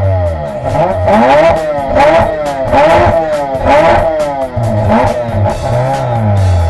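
Peripheral-ported rotary engine of a rally car, heard from onboard, revving up and dropping back repeatedly, its pitch rising and falling about once a second.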